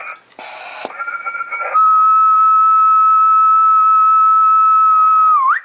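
A steady whistled note of about three and a half seconds, dipping in pitch as it ends, whistled into the microphone of a Cobra 200GTL-DX CB radio transmitting on single sideband. The whistle drives the transmitter to about 105 watts at peak.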